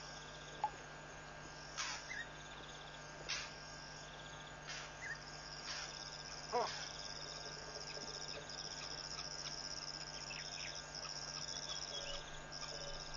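Night insects trilling steadily in the African bush, the high chorus growing fuller about five seconds in, with a few short animal calls over it, one wavering call about six seconds in.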